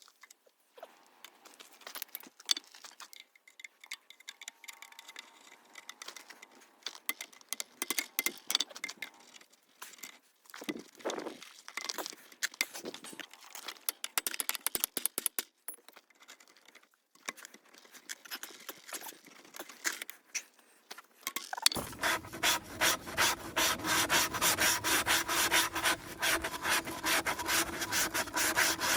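Hand work on the car: irregular scraping and rubbing, then, about three quarters of the way in, a louder run of fast, even back-and-forth rasping strokes.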